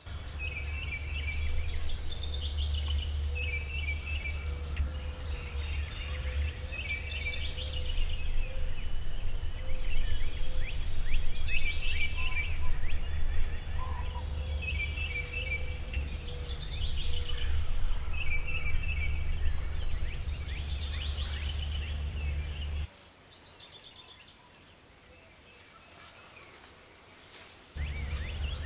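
Birds calling over and over, in short high phrases, above a steady low rumble. The rumble drops away for several seconds near the end, then comes back.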